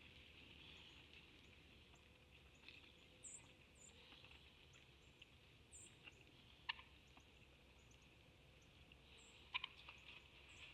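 Faint hiss with a few sharp clicks, about seven and nine and a half seconds in, from a buck feeding with its head in a feeder trough, and a few faint, high bird chirps.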